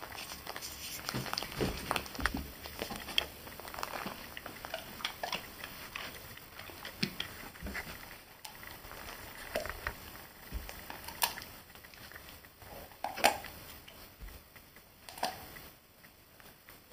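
A Weimaraner eating peanuts off a carpet: irregular crunching and clicking as it chews, with a few sharper, louder crunches.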